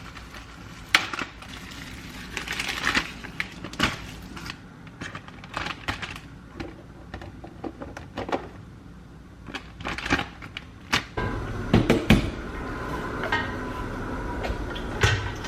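Kitchen handling sounds: scattered clicks, knocks and rustles as food is handled and seasoned. From about eleven seconds in a steady hum sets in, with a few loud knocks around twelve seconds.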